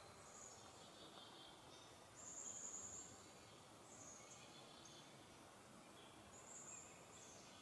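Near silence: faint outdoor ambience with thin, high-pitched chirps and short trills now and then, the longest about two seconds in.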